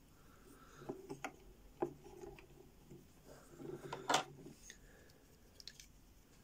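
Plastic Lego pieces clicking and rubbing as a built model is handled, a few short sharp clicks with soft handling noise between them, the loudest click about four seconds in.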